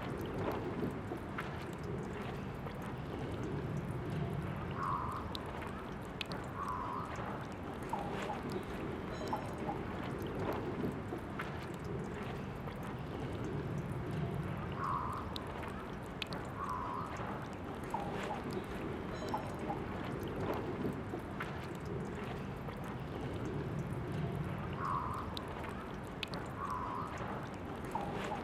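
Water running in a steady trickle from a drinking-fountain tap. Two brief brighter splashes about two seconds apart recur every ten seconds.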